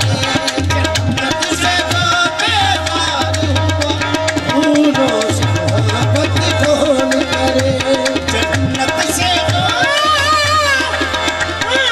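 Live Sufi devotional music in qawwali style: a harmonium holds steady chords under tabla-type hand drumming and hand claps. A male singer sings long, wavering ornamented phrases, most strongly near the end.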